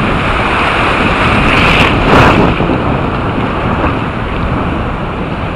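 Wind blowing hard on the microphone over rough, choppy sea water, with one louder surge about two seconds in.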